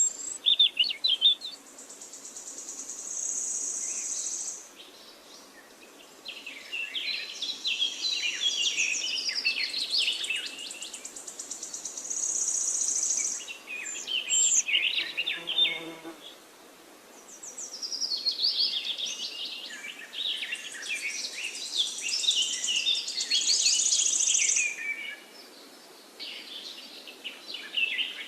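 Songbirds singing in overlapping, varied chirping phrases. A high, steady buzzing trill comes in three times, each lasting a couple of seconds.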